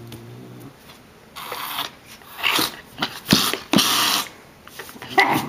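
A calico cat hissing at a Doberman puppy in a string of short, sharp hisses, five or so over the last four seconds. A low growl trails off in the first second, and near the end a short, higher yelp comes from the puppy.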